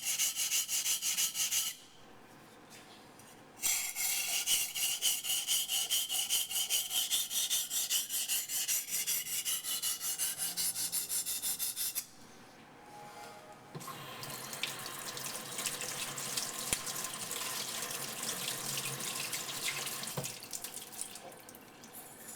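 Steel blade of a Becker BK9 knife stroked quickly back and forth on a bench waterstone, a rhythmic scraping in two runs with short pauses. About fourteen seconds in the strokes stop and a steady hiss of running water follows for about six seconds.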